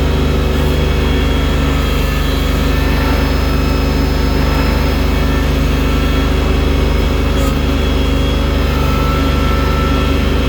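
Engine of a snow-clearing loader with a bucket, running steadily with a low drone that holds even throughout.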